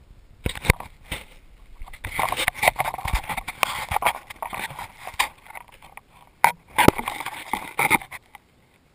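Handling noise from a GoPro in its housing: fingers rubbing on and gripping the camera, with scattered sharp knocks and clicks, as it is carried on a rocket's wooden stick and slid into a cardboard launch tube. The noise stops just after eight seconds in, once the stick is set in the tube.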